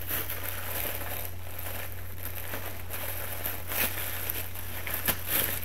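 Tissue paper crinkling and rustling as a wrapped garment is unfolded and unwrapped, in irregular crackles with a few louder crinkles about four and five seconds in.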